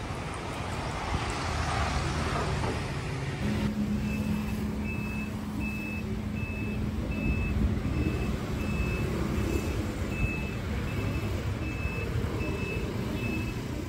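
Low rumbling outdoor noise. About three and a half seconds in it changes abruptly to a steady low hum with a short, high electronic beep repeating about every 0.7 seconds.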